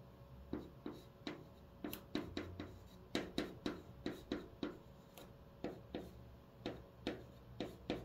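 Chalk in a holder writing on a green chalkboard: a quick run of short, sharp taps, one per stroke, about two or three a second with small pauses between letters.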